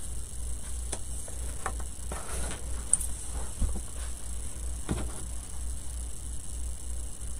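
Faint handling noises as twine is threaded through the holes of small painted banner pieces, with a few light taps and rustles over a steady low hum.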